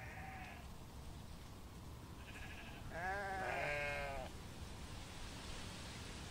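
Sheep bleating several times: short bleats near the start and about two seconds in, then the loudest, a longer bleat with a wavering pitch, about three seconds in. Low, steady background noise runs underneath.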